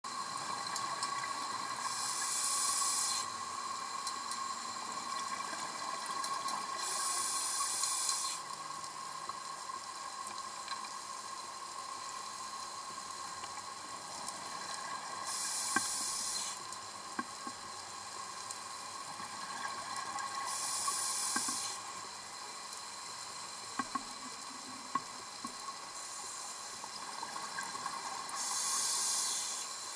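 Scuba diver breathing through a regulator underwater: five bursts of bubbling hiss, one every five to eight seconds, over a steady faint hum with scattered faint clicks.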